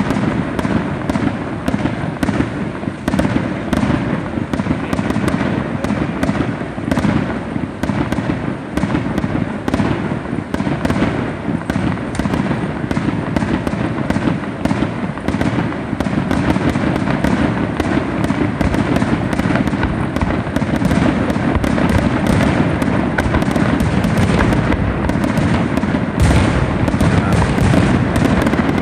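Fireworks display: a dense, unbroken barrage of aerial bursts and bangs, many to the second, over a continuous rumble, growing a little louder near the end.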